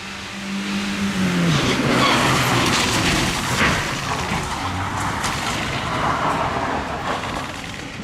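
Rally Toyota HiAce van's engine running, its pitch dropping about a second and a half in, then the rushing noise of its tyres sliding across the wet surface and throwing spray for several seconds as the van drifts through the turn.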